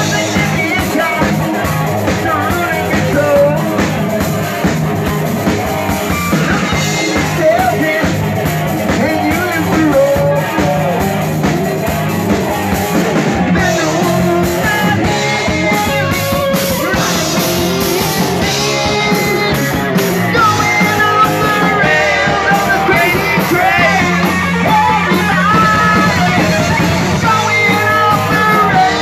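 Live heavy rock band playing loud: distorted electric guitar over bass and a pounding drum kit, with bending guitar or vocal lines on top.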